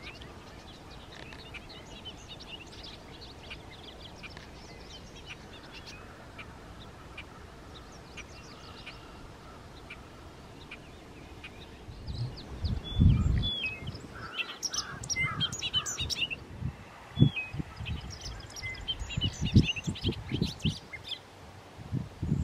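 Bobolink song: faint scattered chirps at first, then about halfway in, louder bubbly, tumbling runs of high metallic notes. Loud low thumps and rumble of handling noise on the microphone come in at the same time.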